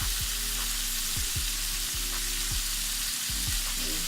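Freshly added cabbage frying hard in hot bacon fat with onions: a steady, loud sizzle. Background beat music with regular low kick-drum thumps and held low chords runs underneath.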